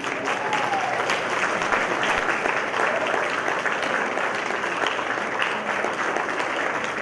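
Audience applauding, with many hands clapping at once in a dense, steady patter.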